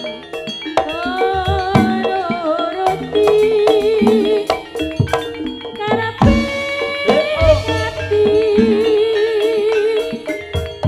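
Jaranan gamelan ensemble playing: sharp drum strokes and struck metal keys under a sustained, wavering melody line, with a deep gong-like stroke about six seconds in.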